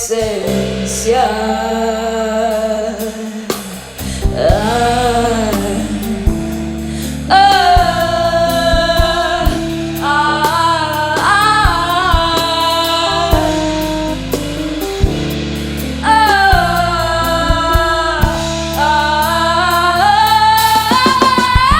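Soul band playing live, with drums and bass under a voice singing long, sliding notes without clear words.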